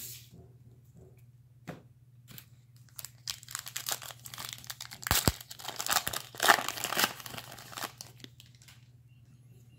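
Foil trading-card pack wrapper being torn open and crinkled by hand, with a few sharp clicks about five seconds in.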